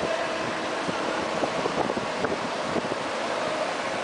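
Combilift all-wheel-drive four-way forklift running as it drives past, with a steady whine over its motor noise and wind buffeting the microphone.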